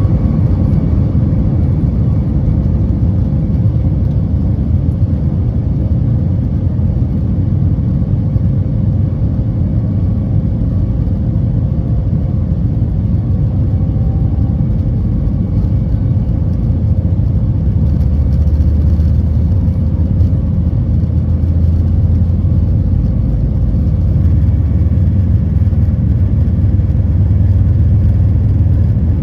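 Cabin noise of a Boeing 737 MAX 9 at takeoff: its CFM LEAP-1B turbofans at high thrust give a loud, steady rumble with a faint whine that fades early on. The low rumble grows heavier a little past halfway.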